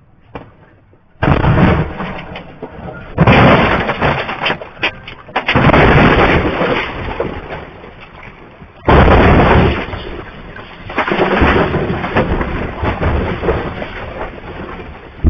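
Heavy crashing and rumbling inside a truck cab as the truck crashes and is thrown over. Loud impacts come about a second in and again around three, five and a half, nine and eleven seconds, with continuous grinding, tumbling noise between them.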